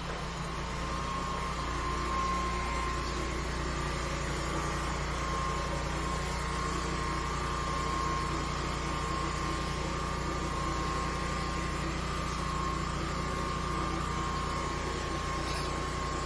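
High-pressure sewer jetter running while clearing a clogged drain line: a steady mechanical drone with an even, high whine that holds throughout.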